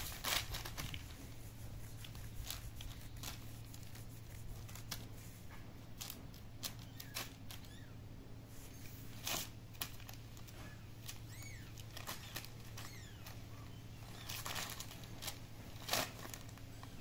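Sheet of paper crinkling and rustling in short, irregular bursts as kittens pounce on it and paw it, over a steady low hum.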